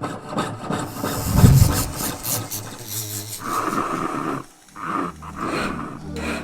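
Close-up jewelry-making tool sounds: rapid clicks and raspy scraping with a loud low swell about a second and a half in, then a steady whine in two stretches in the second half with a brief cut between them.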